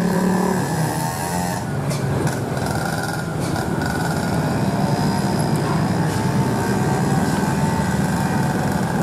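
Cars and small motorcycles climbing a steep hairpin bend, their engines running steadily under load with a pitch that rises and falls a little. A few brief clicks come about two to four seconds in.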